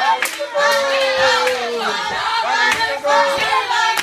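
Several voices calling out and singing overlapping sounds with sliding pitches, as in a theater 'circle of sound' exercise, cut through by sharp hand claps at irregular intervals.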